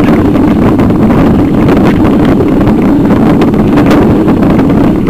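Loud, steady rough rumble and rattle of a bicycle-mounted camera jolting over cobblestones, with wind on the microphone.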